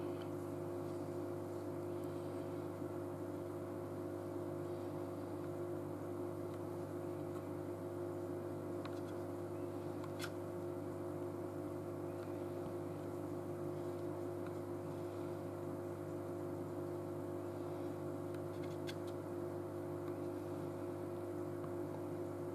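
A steady low hum of several held tones, with a few faint single clicks as the dial and buttons of a Gardena MasterControl water timer are worked.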